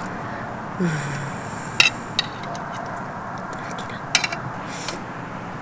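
Knife and fork on a plate as food is cut and speared, with a few sharp clinks of metal on the plate.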